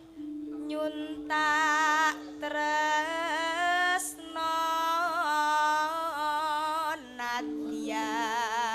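A sinden singing a Javanese song into a microphone, in several ornamented phrases with a wide, wavering vibrato and sliding notes. Beneath her voice runs a steady held accompanying note that shifts pitch a few times.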